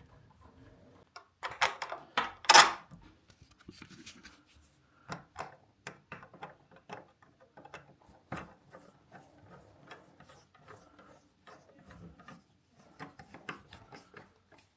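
Door lock hardware being handled and fitted: a string of short clicks and knocks with light rubbing between them, the loudest knocks about two seconds in.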